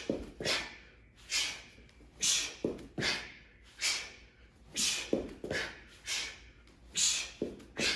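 A man's sharp, hissing exhales, about two a second in an uneven rhythm, each one forced out with a straight knee strike or switch of stance during a fight-stance knee drill.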